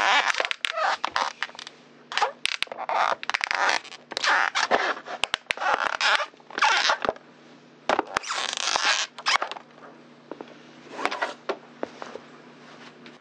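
A flattened clear plastic bottle crackling and crinkling under a heavy work boot as it is ground and stomped on, in repeated bursts with sharp snaps and short pauses between, fading out near the end as the boot lifts away.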